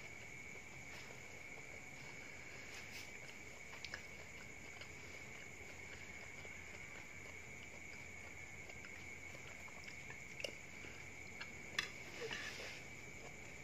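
A steady, high insect trill of crickets, with soft chewing and a few sharp clicks of a metal spoon and fork against a plastic plate, the clicks loudest near the end.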